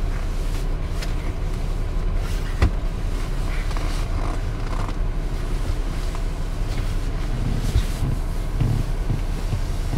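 Wind buffeting the camera's microphone: a steady low rumble, with a sharp click about two and a half seconds in.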